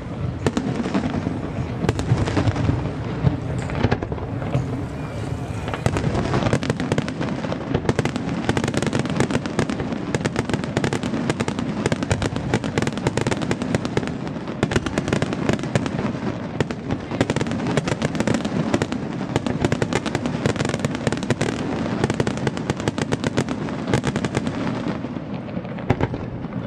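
Aerial fireworks display: shells bursting in a rapid, continuous barrage of bangs and crackles.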